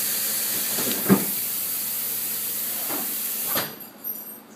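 A steady hiss, with a sharp knock about a second in and lighter knocks near three seconds. Just before it cuts off suddenly near the end there is one more knock.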